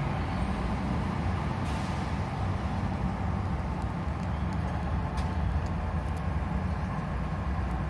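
Steady low engine rumble heard from inside a car's cabin, with road traffic passing.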